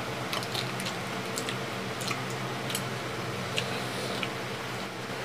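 Balut eggshells being cracked and peeled by hand, giving scattered small crackling clicks, mixed with close chewing. A steady low hum runs underneath.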